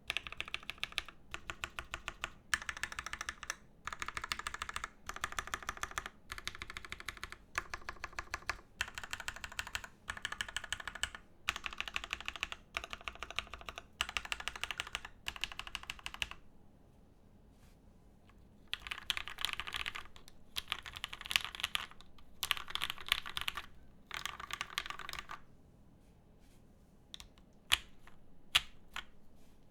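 Typing on a Praxis IM mechanical keyboard with lubed Gateron Yellow Milky Top linear switches in an aluminium plate and JTK Zen keycaps. The keystrokes come in quick runs of short bursts, with a pause of about two seconds past the middle. Near the end there are only a few single key presses, two of them loud.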